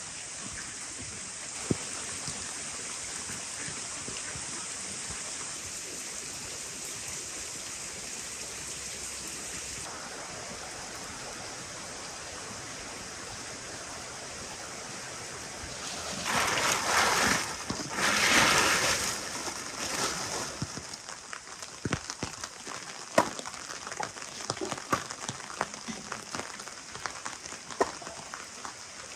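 Steady rain falling on wet ground, with a louder rushing spell a little past the middle and scattered sharp knocks near the end.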